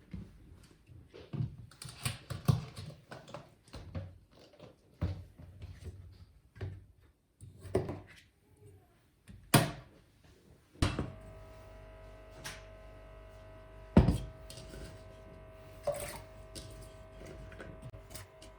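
Kitchen work sounds: irregular knocks and clunks of utensils and cookware. About 11 seconds in, a steady machine hum with several held tones starts suddenly, and a few more sharp knocks sound over it.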